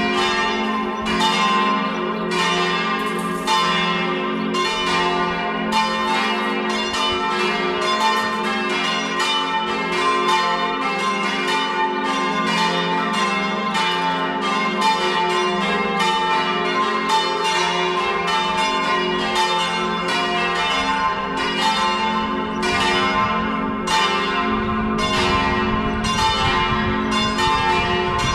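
Four swinging church bells, a peal tuned in G-flat, ringing together in full peal (plenum), their strokes overlapping in a continuous stream of strikes with a lasting hum. A low rumble joins in near the end.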